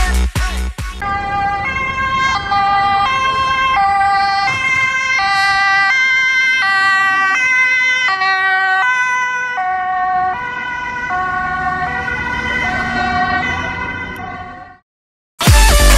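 Dutch ambulance's two-tone siren sounding while it drives on an urgent call, switching between a low and a high note, each held about two-thirds of a second, over road and engine noise. It fades out near the end.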